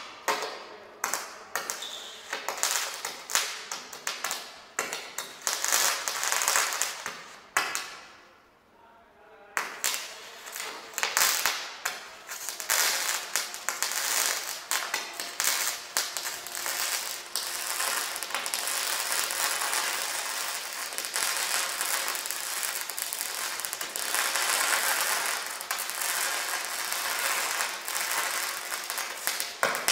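MIG welding arc crackling as a single-pass butt weld is run on metal plates with a Kemppi MIG welder. The crackle comes in separate bursts at first, stops for about two seconds near eight seconds in, then restarts and runs steadily.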